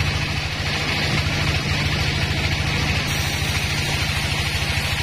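Sawmill band saw running steadily: a low machine drone with rapid even pulsing underneath and a hiss above it.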